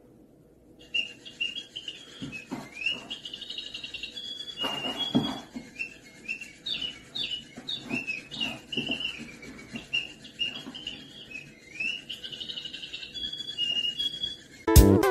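A small bird chirping and tweeting in quick, high, varied calls, starting about a second in, with a few soft knocks and thumps in between.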